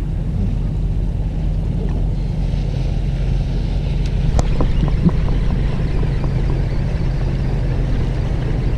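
A boat engine running steadily at low revs, with wind on the microphone and a few faint clicks about halfway through.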